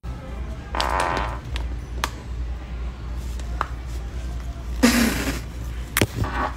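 Two farts: a rasping one about a second in and a louder, lower one about five seconds in, over a steady low hum.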